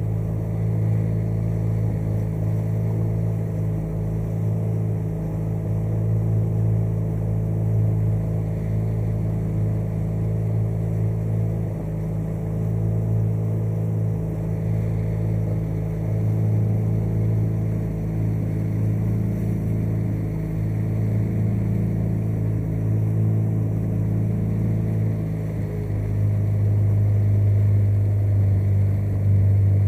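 A small motorboat's engine running steadily while the boat cruises, a low even drone that gets somewhat louder near the end.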